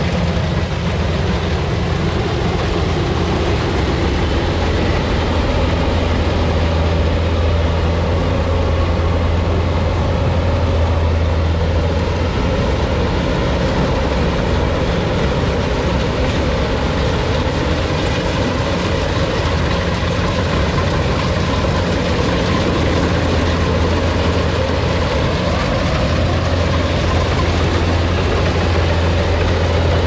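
Kubota rice combine harvester running under load as it cuts and threshes rice: a steady, loud, low engine drone without a break.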